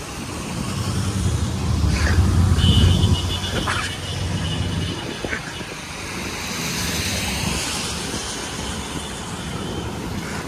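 Road traffic on a wet road: a vehicle rumbles past, loudest about two to three seconds in, then fades to a steady traffic hiss. A thin high steady tone sounds for about two seconds near the start.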